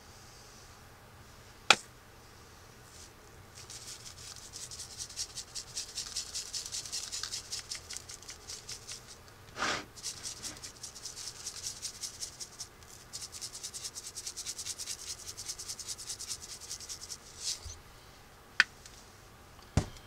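Spice shaker shaken over a bowl of ground meat: a fast, rhythmic, scratchy rattle of seasoning granules in two long spells with a short break about halfway. A few single sharp clicks come before and after the shaking.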